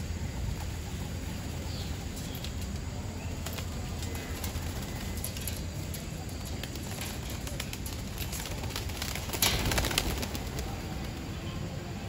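Pigeons' wings flapping as they take off and fly, with scattered wing claps and one loud flurry of wingbeats about nine and a half seconds in, over a steady low outdoor rumble.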